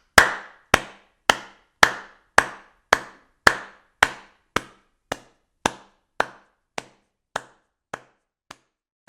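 A run of sharp knocks, about two a second and evenly spaced, each dying away quickly, getting gradually quieter toward the end.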